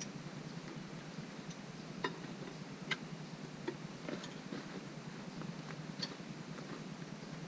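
A handful of sharp, separate metallic clicks, the loudest about two and three seconds in, from a factory lug wrench working the wheel's lug nuts as the last ones are tightened. A steady low hum runs underneath.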